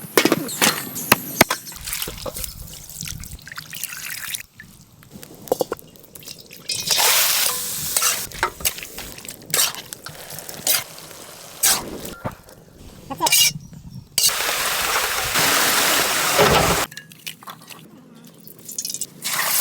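Kitchen cooking sounds for noodles: sharp clicks and knocks of utensils on cookware, between stretches of steady hissing water and liquid. The sound cuts abruptly from one part to the next.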